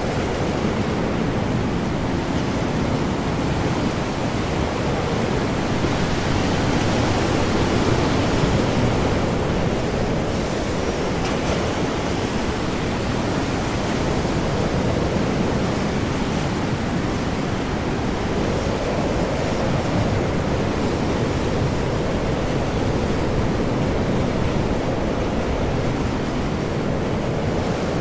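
Storm at sea: heavy ocean waves surging under high wind, a steady dense wash of noise that swells a little about a third of the way in.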